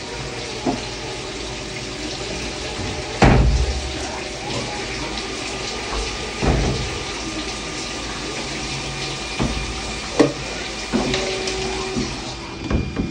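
Ganesh CB-32M Swiss-style CNC lathe running a cutting cycle: cutting oil splashing steadily over the spindle and tools with a steady machine hum, broken by several sharp knocks from the machine, the loudest about three seconds in.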